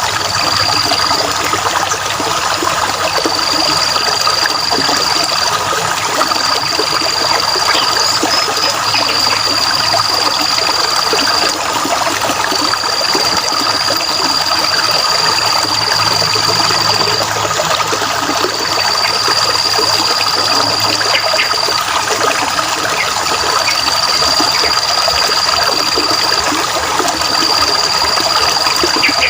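Steady rushing and trickling of flowing water, like a stream over stones. Over it, a high, thin, even trilling call comes in phrases of one to three seconds, repeated again and again with short gaps.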